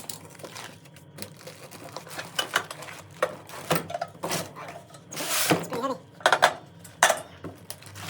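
Irregular metallic clinks, clanks and knocks of metal parts and tools being handled while setting up a motorcycle lift, with a longer scrape about five and a half seconds in, and a faint steady low hum underneath.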